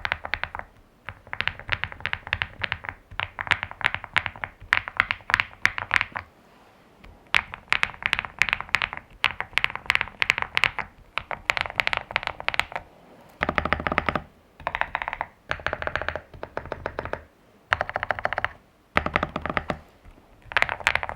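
Typing on a modded Zuoya GMK87 mechanical keyboard with hand-lubed Feker Matcha Green switches and PBT doubleshot keycaps, key presses in quick runs with short pauses between. About two-thirds in the pattern changes to shorter bursts of rapid presses with a deeper sound.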